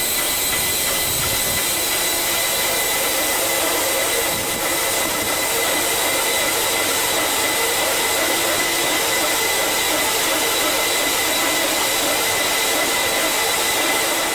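A loud, steady hiss with thin, high whistling tones running through it, unchanging throughout.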